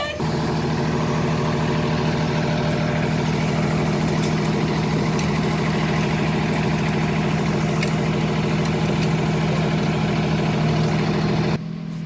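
Diesel engine of a 2005 Freightliner garbage truck running steadily close by, a loud, even hum with several pitched tones. It drops away suddenly near the end.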